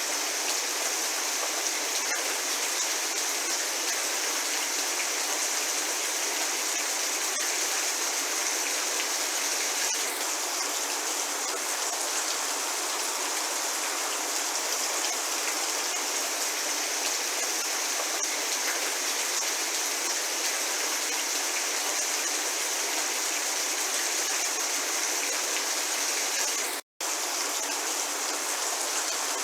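Steady medium rainfall, an even hiss of falling rain with no thunder. Near the end the sound cuts out completely for a split second, then resumes.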